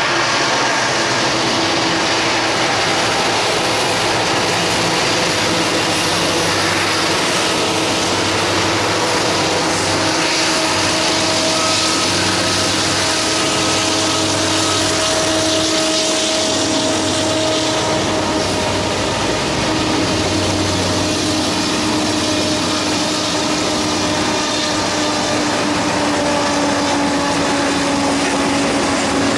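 Freight train passing close by: two Norfolk Southern diesel locomotives run past with a steady engine drone, followed by the rolling of the freight cars' wheels on the rails.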